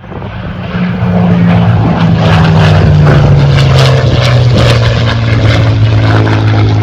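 Electric motor and propeller of a Hobby King Hurricane RC model plane coming up to power and running loud. Its steady tone slowly drops in pitch over several seconds.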